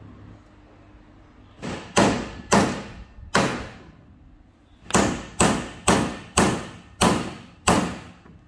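Claw hammer striking a wooden block laid on a PVC block: about ten sharp knocks in two bursts, three with a pause, then six at roughly two a second.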